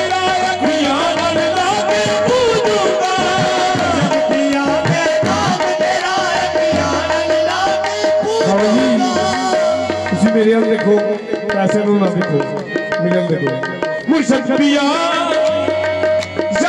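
Qawwali music: harmoniums sustaining a held drone note under bending melodic lines, with singing voices and a steady hand-drum rhythm.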